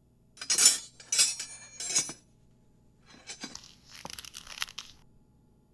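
Sound-effect rustling: three short crinkling, tearing bursts, then softer crackling with light clinks.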